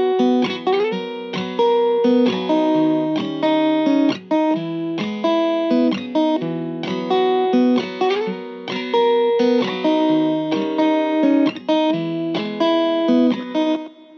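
Background music: a plucked guitar melody with notes that often slide up in pitch. It cuts off near the end.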